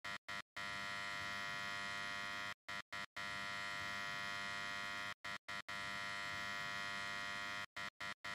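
Electrical buzz of a neon sign: a steady hum that stutters off and on in quick breaks about every two and a half seconds, like a flickering neon tube.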